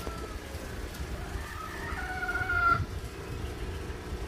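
A rooster crowing once, a long held call that swells and then cuts off abruptly about three seconds in, over a steady low rumble.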